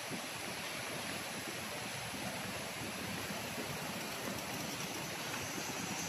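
Steady rushing outdoor background noise with a faint, thin high-pitched tone held throughout; no distinct events stand out.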